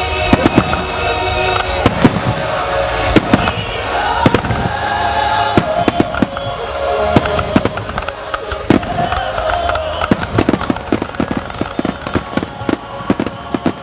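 Fireworks display: repeated sharp bangs and cracks from bursting shells, over music. The crackling grows denser in the last few seconds.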